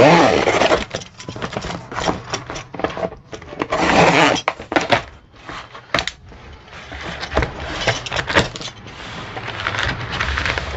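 A long cardboard box being opened with a box cutter and its contents handled. The cardboard scrapes and rustles, with many small clicks and knocks, and there are louder rustles at the start and about four seconds in. A fishing rod in its cloth bag shifts against the cardboard.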